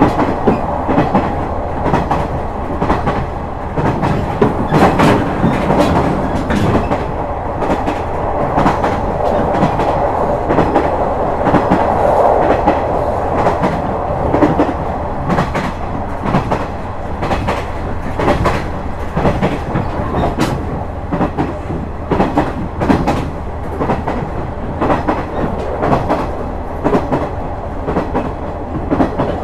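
KiHa 126 series diesel railcar running at speed: a steady running noise, with its wheels clicking over rail joints again and again.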